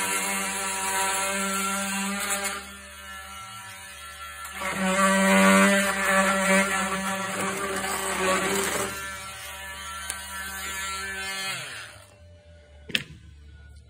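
Cordless oscillating multi-tool with a sharpened scraper blade cutting through thick rubber stall mat: a steady buzzing whine that eases off and picks up again as the blade is pushed along, then stops about twelve seconds in. A single sharp knock follows about a second later.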